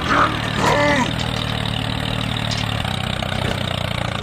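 Tractor engine running steadily at idle, a low, even drone. A brief higher pitched, bending sound rises over it in the first second.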